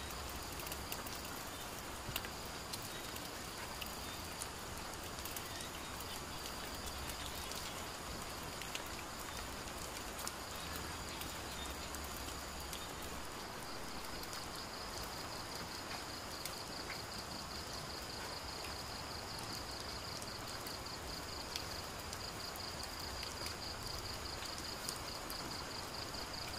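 Night forest ambience: insects keep up a high, steady trill that turns into a fast, even pulsing about halfway through, over a steady hiss of rain with scattered faint clicks.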